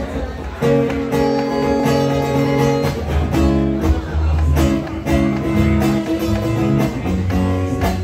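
Live band playing: acoustic guitar strummed in chords over a drum kit and bass guitar.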